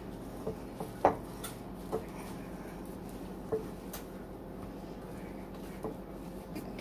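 Hands squeezing and mixing a soft Bisquick dough in a mixing bowl, with a few light knocks and clicks against the bowl, the sharpest about a second in. A faint steady hum underneath.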